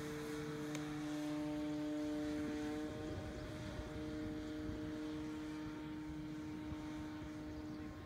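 Steady high-pitched drone of an RC plane's O.S. nitro glow-fuel engine and propeller in flight at constant throttle, fading slightly near the end.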